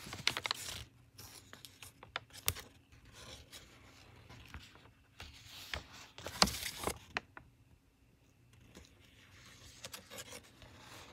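Crumpled paper sheet crinkling and rustling as it is handled, in scattered crackly bursts, the loudest a little past six seconds in.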